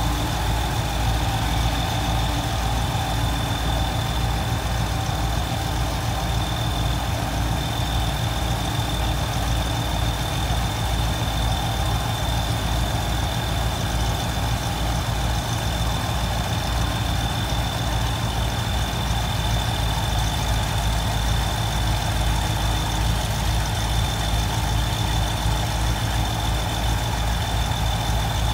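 Heavy engines of a floating sand-dredging barge and a working crawler excavator running steadily, a low pulsing rumble with a thin, steady high whine.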